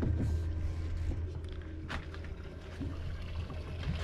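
Water lapping and trickling against the hull of a drifting boat, over a steady low hum, with one sharp click about two seconds in.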